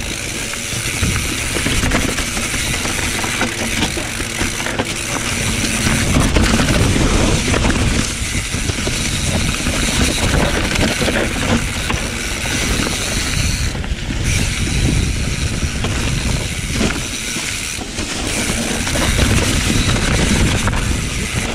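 Mountain bike rolling fast down a dirt singletrack covered in dry fallen leaves: tyres running over leaves and dirt, the bike rattling over the bumps, with a steady rush of wind on the handlebar camera's microphone.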